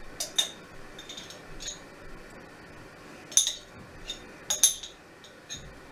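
Metal teaspoon clinking against a glass jar as pickle is scooped out: a run of short, sharp, ringing clinks, the loudest about three and a half seconds in and a pair close together about four and a half seconds in.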